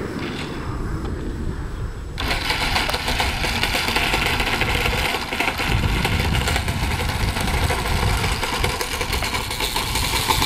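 Motor and propeller of a radio-controlled SU-26m aerobatic model plane running steadily at high speed as it rolls on the tarmac, a buzzy whine over propeller hiss. It comes in abruptly a couple of seconds in, after a stretch of low rumbling.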